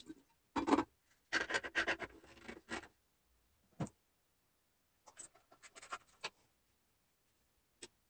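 An enamel jug being handled and set into place on a plastic coffee-maker drip tray: clusters of scrapes, knocks and clinks, a single knock just before the halfway point, a few more clicks and a last click near the end.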